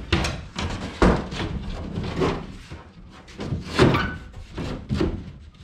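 A sheet of quarter-inch plywood knocking and scraping against the aluminium hull and floor of a jon boat as it is test-fitted, with several sharp thunks.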